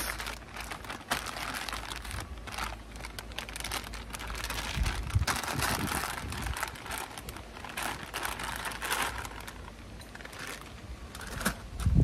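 Plastic bags of frozen vegetables crinkling and rustling as they are handled and wiped dry, with a low bump near the middle.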